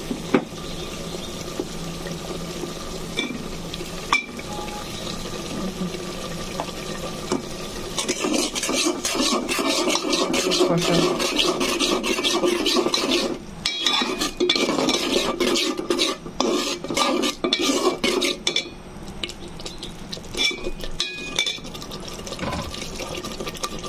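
A steel spoon stirring and scraping shrimp and spice paste around an aluminium pot while it fries with a steady sizzle. About a third of the way in the stirring becomes faster and louder, with dense rapid scrapes for about ten seconds, then eases off.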